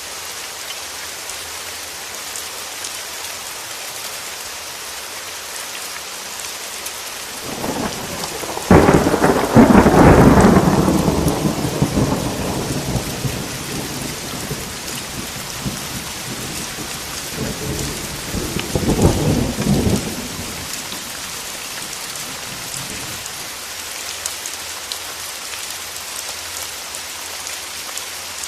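Steady rain falling, with a thunderclap about a third of the way in that rolls into a long fading rumble, and a second, weaker roll of thunder later on.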